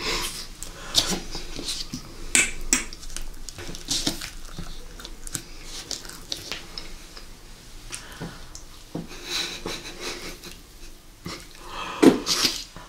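Close-miked eating sounds: irregular wet lip smacks and mouth clicks as a fluffy, creamy spread is eaten off spoons, with the odd spoon tap. The loudest smack comes near the end.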